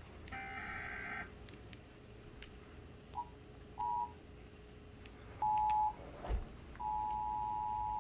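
Emergency Alert System attention signal over a TV broadcast: the two-note alert tone comes in broken snatches (two short blips, a half-second burst, then a longer burst near the end), after a one-second burst of several mixed tones at the start. A single thump falls between the last two bursts.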